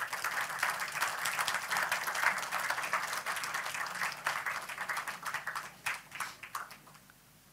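Audience applauding: dense clapping that thins out over the last few seconds into scattered claps and stops shortly before the end.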